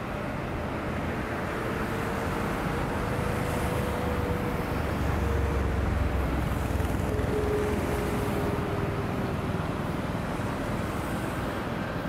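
Shipyard ambience: a steady mechanical hum with a low rumble that swells in the middle, and a faint whine that wavers slightly in pitch.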